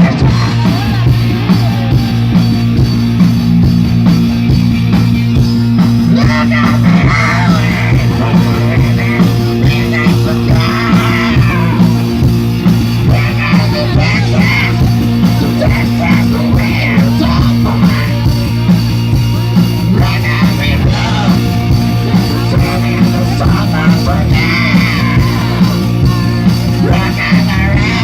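Loud rock music with shouted and sung vocals over a steady, driving beat.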